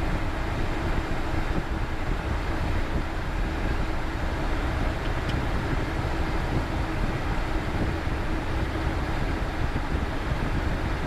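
Cessna Citation Bravo's twin Pratt & Whitney PW530A turbofans at taxi idle, a steady rumble and rush heard from the cockpit as the jet rolls along the taxiway. A faint steady hum runs under it and fades out about nine seconds in.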